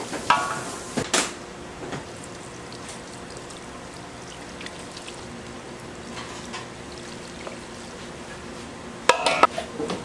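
Tableware clinking in two short clusters, near the start and again near the end, with a steady low hum underneath.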